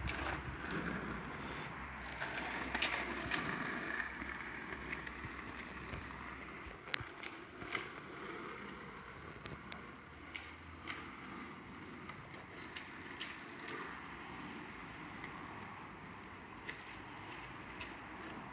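Skateboard wheels rolling on asphalt, a steady rumble that slowly fades as the board moves away, with a few sharp clicks along the way, the loudest about seven seconds in.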